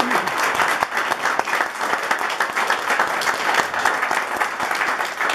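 Audience applauding: many hands clapping steadily in response to a call for a big hand.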